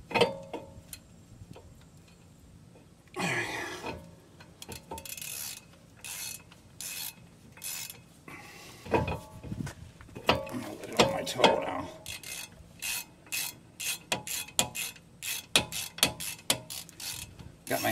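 Socket ratchet clicking as a lug nut is run down a wheel stud to hold a new brake rotor against the hub. Scattered clicks and a brief scrape come first, then a steady series of quick ratchet clicks, a few per second, in the second half.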